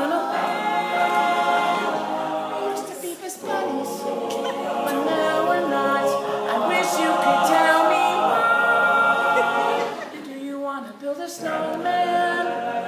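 All-male a cappella group singing: a male lead voice over the group's wordless backing harmonies, with no instruments. The singing thins briefly about three seconds in and again around ten seconds in.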